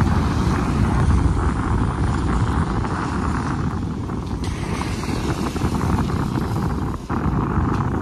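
Wind blowing across the microphone: a steady low rush with no breaks.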